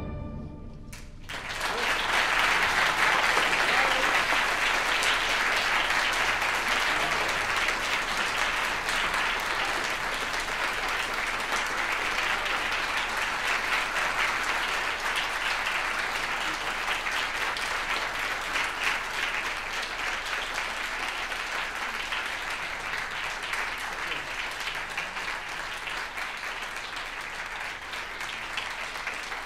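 Concert audience applauding: the last chord of the wind band dies away in the hall's echo, then the clapping breaks out about a second in and goes on steadily, slowly fading.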